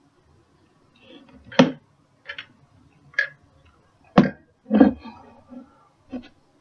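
A person swallowing during a Mendelsohn maneuver exercise: a string of about six short mouth and throat clicks and gulps over several seconds, the loudest about four seconds in.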